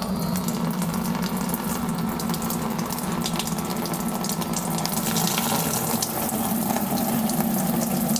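Cooling water draining in a steady stream from the radiator of an AEC RT double-decker bus into a plastic tub, starting suddenly.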